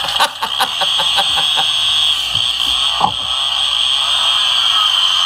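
Chainsaw sound effect played through the tiny speaker of a battery-operated Clark Griswold chainsaw ornament: a quick string of ticks for about the first second and a half, then a steady, tinny buzz of the saw running.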